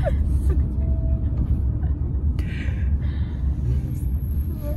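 Steady low rumble of a van driving, with engine and road noise heard from inside the passenger cabin.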